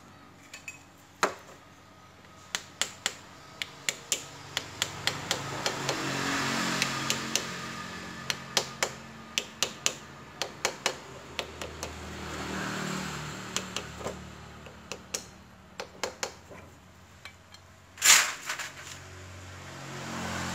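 Sharp metal clicks and clinks of a hand wrench working the bolts as the gear-position switch is refitted on a Honda motorcycle engine, coming irregularly in runs, with one louder clank near the end.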